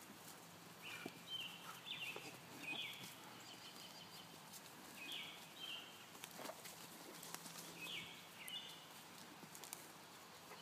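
Faint bird song outdoors: short, repeated chirping phrases every second or so, with pauses of a few seconds, over scattered soft thuds of hooves on dirt.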